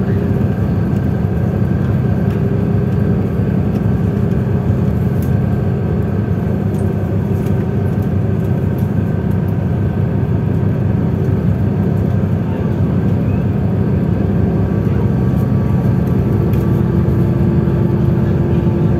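Sunlong SLK6112 bus's Cummins ISL8.9 diesel engine and Voith DIWA 864.5 automatic gearbox running with a steady low drone, growing slightly louder near the end.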